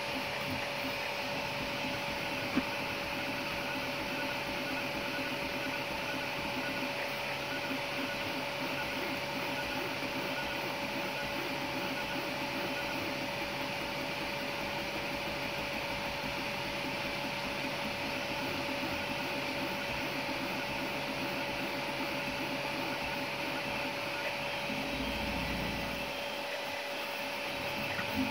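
3D printer running a fast print job at 180 mm/s, with two part-cooling fans at full speed giving a steady whir and tone over the whirring of the stepper motors as the print head moves. One sharp click comes a few seconds in.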